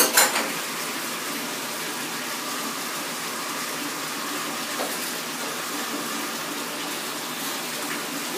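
Bath tap running into a bathtub, a steady rush of water filling the tub. A brief sharp sound at the very start.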